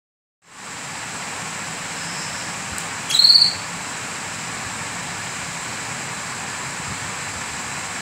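A single short, high chirp from a canary about three seconds in, over a steady background hiss.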